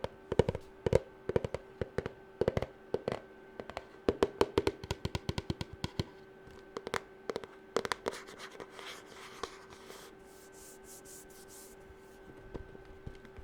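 Fingernails tapping quickly on a hard object: sharp clicks in rapid runs for about the first eight seconds, then a few seconds of soft scratching and a few faint taps near the end.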